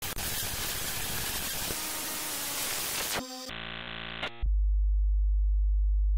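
Television static hiss for about three seconds, then a brief steady test-card tone with many overtones, then a loud, steady, very deep hum.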